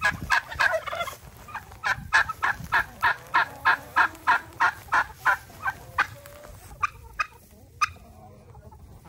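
Domestic turkeys gobbling, including a steady run of short, sharp calls about three a second from about two seconds in to six seconds, then a few single calls.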